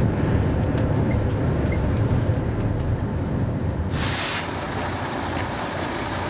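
Volvo coach driving, heard from inside the cabin: a steady low engine and road rumble. About four seconds in there is a brief hiss, after which the rumble is a little quieter.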